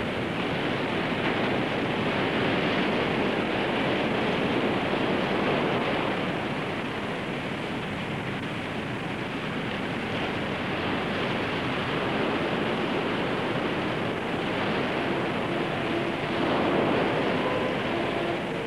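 Ocean surf breaking and wind blowing on a beach: a steady rushing noise.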